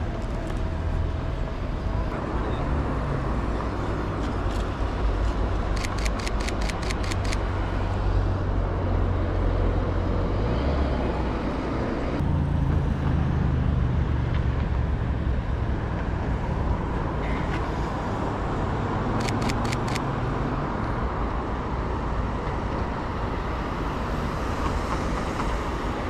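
Street traffic noise, a steady low rumble of passing vehicles. Twice, about six and about nineteen seconds in, a short run of rapid, evenly spaced clicks: a Sony A7 III's shutter firing in burst mode.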